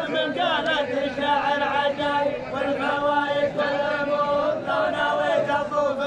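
Many men chanting a poet's verse together in the dammah style of southern Saudi Arabia, the voices in unison over a steady held pitch.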